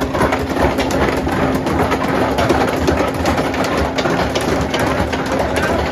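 Steel roller coaster train running along its track close by: a dense, continuous rattle of clacks over a steady hum.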